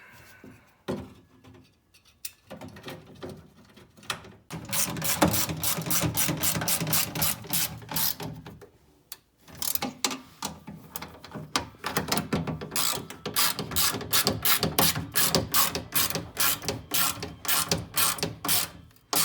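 Socket ratchet wrench clicking in fast runs while driving in the bolts of a new door latch mechanism, with a few short bursts first and a brief pause about halfway through.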